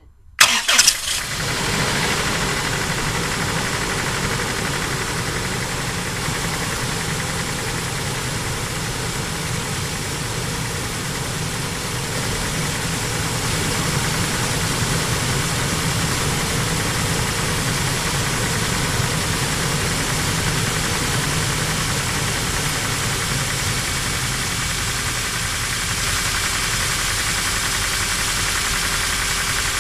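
Toyota 3RZ-FE 2.7-litre inline-four engine starting with a loud burst about half a second in, then idling steadily with a knock from worn connecting-rod piston pin bushings on cylinders 3 and 4.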